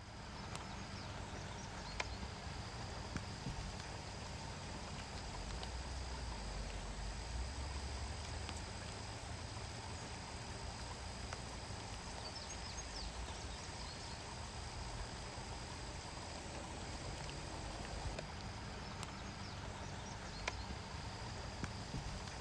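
Outdoor ambience: a steady low rumble under a thin, high, continuous insect drone, with a few faint clicks.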